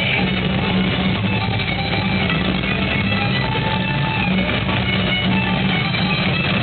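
Guitar-led music playing steadily.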